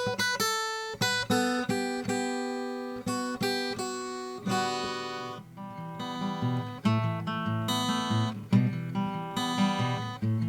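Acoustic guitar played fingerstyle, recorded through a Realistic 33-1062 shotgun condenser mic: a run of single picked notes gives way about halfway through to fuller ringing chords with lower bass notes.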